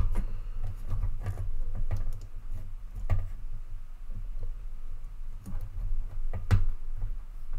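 Lego bricks and joints clicking and rattling as the arms of a brick-built figure are folded and repositioned by hand: scattered small irregular clicks, the sharpest about three and six and a half seconds in, over a low steady hum.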